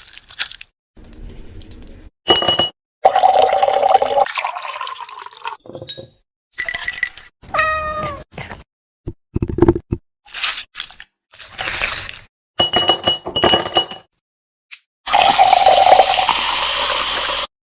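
A string of short clips of pet sounds cut together, with abrupt silent gaps between them. Cat meows are among them, including one sliding call about halfway through, and a longer loud noisy stretch near the end.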